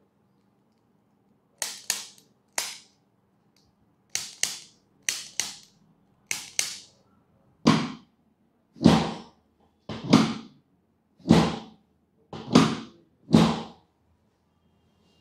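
Sharp clicks of a handheld chiropractic adjusting instrument fired against the back, several in quick pairs, followed by about six louder, deeper thumps roughly a second apart as hands strike the back through the clothing.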